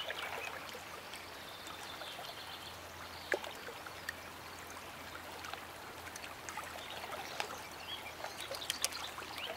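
Shallow water trickling steadily over gravel, with small scattered ticks.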